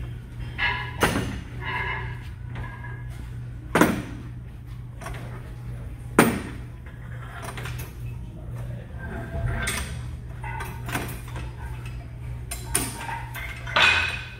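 Sharp metallic clanks of gym weights and equipment, a few seconds apart, the loudest two about four and six seconds in, over a steady low hum.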